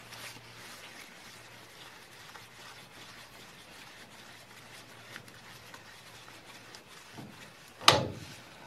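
A paper towel rubbing and wiping over the metal hub of a car's rear half shaft, with light handling noises. One sharp knock comes near the end.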